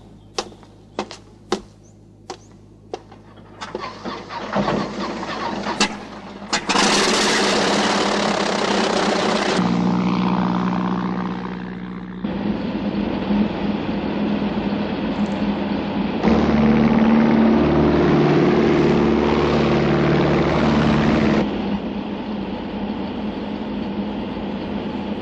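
Several sharp clicks, then the radial piston engines of a Junkers Ju 52 trimotor airliner start up about four seconds in and run loudly. The engine sound changes abruptly several times as it shifts between the aircraft taking off and flying low and a steadier engine drone as heard inside the cabin.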